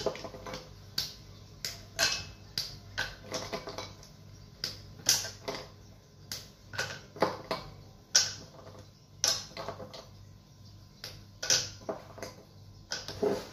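Squares of dark chocolate snapped off a bar by hand and dropped into a stainless-steel saucepan of cream: an irregular string of sharp snaps and light clicks.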